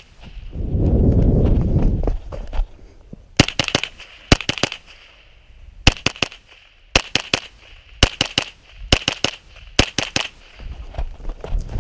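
Beretta ARX-160 rifle firing rapid strings of shots, in groups of two to four with short pauses between them, each shot a sharp crack with a ringing tail. A loud low rumble comes about a second in, before the first string.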